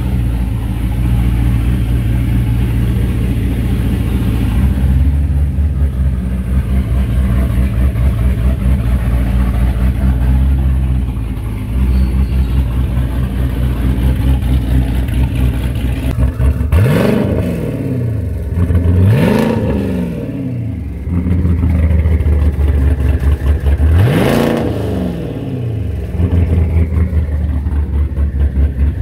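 Twin-turbocharged 6th-gen Camaro SS's 6.2-litre LT1 V8 idling, then revved three times about two-thirds of the way in, each rev rising and falling quickly, the last a few seconds after the first two.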